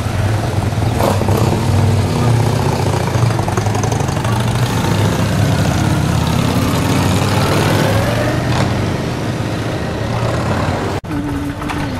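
Cruiser and touring motorcycles riding slowly past one after another, their engines running at low revs with a steady low rumble and a rise and fall in pitch as one goes by.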